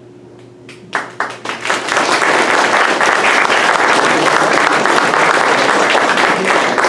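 Audience applauding: a few scattered claps about a second in, quickly swelling into full, steady applause.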